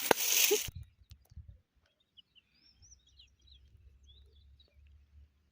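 A brief loud rush of noise at the very start, then small birds chirping faintly in short, scattered calls over a low rumble.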